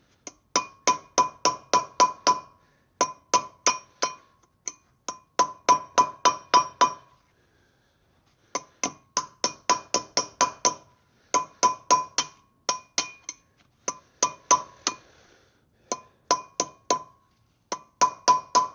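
Hammer blows driving a new wheel bearing race into a Land Rover Defender 90 hub, struck through an old race laid on top as a drift. Quick runs of sharp metal strikes, about four a second, with short pauses between runs; each strike rings with a clear tone.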